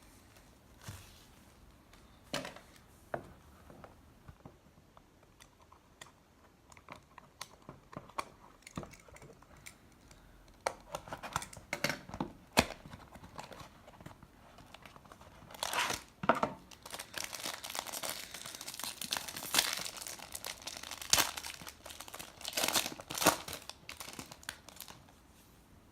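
Plastic wrapping on a trading card box being torn open and crinkled, with scattered handling clicks. The crinkling grows denser and louder in the second half, then stops just before the end.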